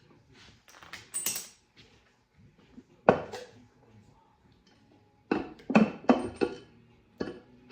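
Scattered sharp metal clanks and clinks of hand tools and engine parts being handled on an LS V8 engine during teardown, with a quick run of several clanks near the end.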